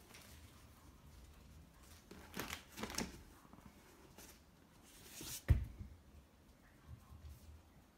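Cats coming down a wooden staircase: a few soft scuffs of paws around two to three seconds in, then a single dull thump about five and a half seconds in as a cat lands close by.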